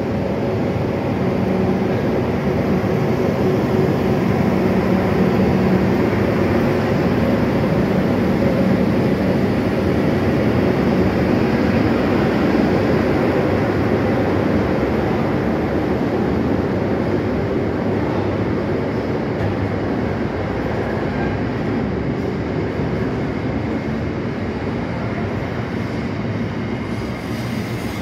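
Two Class 90 electric locomotives, double-headed, hauling a container freight train past at close range: a steady hum and the rumble of wheels on rail. The container wagons then roll past, the sound easing slightly toward the end.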